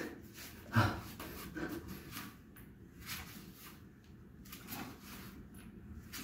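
Body movement on a foam exercise mat as a person gets down from all fours into a forearm plank: a soft thump a little under a second in, then faint rustling and shuffling.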